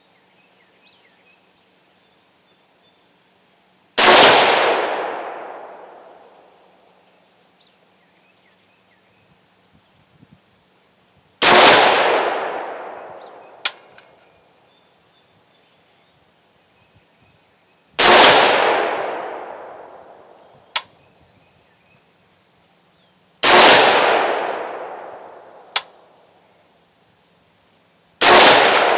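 Five single shots from an AR-15-style rifle, fired several seconds apart, each followed by a long echoing tail. A short, sharp ping comes about two seconds after three of the shots.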